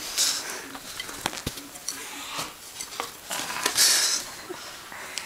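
Scattered light taps and clicks with bursts of rustling, the loudest about four seconds in: a baby coati scrambling and jumping about on a quilted bedspread, among a wooden drumstick and a plastic ball.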